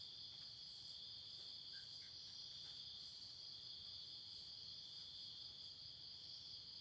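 Faint, steady, high-pitched chirring of crickets.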